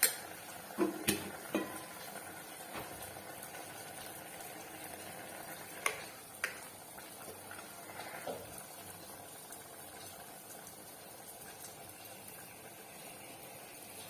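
Beef cooking in its own juices in an open pressure cooker, bubbling steadily, while about half a cup of warm water is poured in. A few sharp clinks of utensils or vessels against the pot come near the start and about six seconds in.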